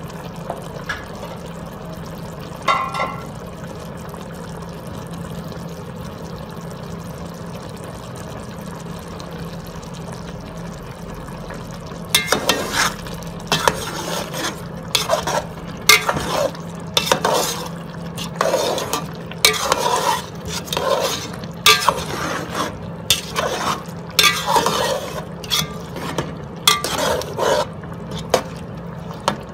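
A ladle stirring chicken pieces in broth in a cooking pot, scraping and knocking against the pot in quick, irregular strokes that start about twelve seconds in. Before that there is only a steady low hum, with one short knock.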